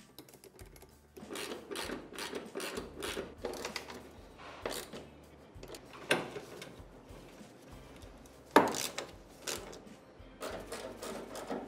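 Bolts being driven into the plastic rear bodywork with a hand socket driver: irregular clicking and scraping of the tool and fasteners, with a few sharper knocks on the plastic, the loudest about two-thirds of the way through.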